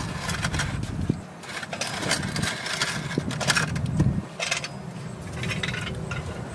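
Irregular metal clanks and knocks from car-repair work, with a heavier thump about four seconds in, over a steady low rumble.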